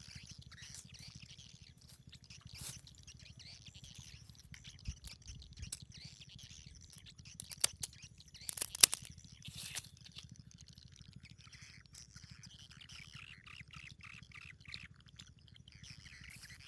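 Birds chirping in the background. In the middle come a few sharp snips and crunches, the loudest about nine seconds in, as scissors cut through shellfish bait.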